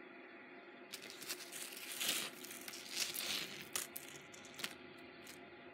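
A hand picking up and gathering a long gold-tone chain necklace strung with faux pearls and acrylic crystals. The chains and beads rustle and slide against a textured cloth, with a few small clicks, starting about a second in.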